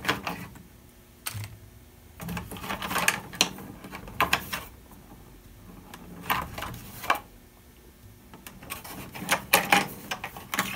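Small sewing machine accessories and bobbins being handled and sorted, clicking and rattling against each other in irregular clusters of light clacks.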